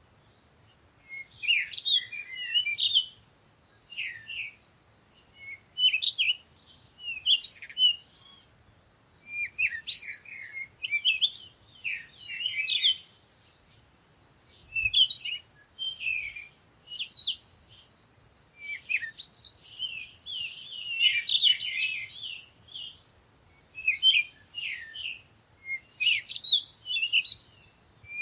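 Songbirds chirping and singing in short, high phrases a second or two long, separated by brief pauses. Near two-thirds of the way through, the phrases overlap into a busier stretch of song.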